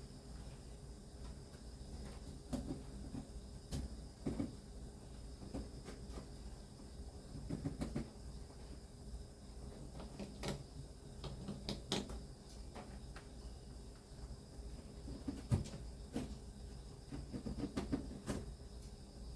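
Scattered light knocks and clicks at irregular intervals, over a faint steady high-pitched tone and a low rumble.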